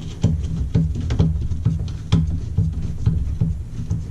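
Irregular plastic clicks and knocks as the dishwasher's upper sprayer hose fitting and its nut are handled and lined up inside the tub, several a second, over a steady low hum.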